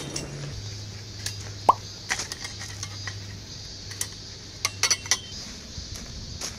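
Scattered light clicks and clinks of small hard objects being handled, with a quick cluster of them about five seconds in. A short rising plop comes a little under two seconds in, over a faint low steady hum.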